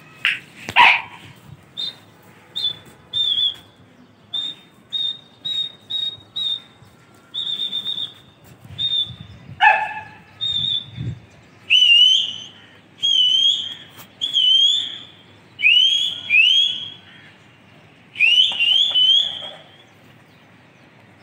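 A pigeon keeper whistling to his flying flock: a long run of short, sharp, high whistles, then from about halfway on a series of quick rising whistles, about eight of them. There is a brief loud call near the start.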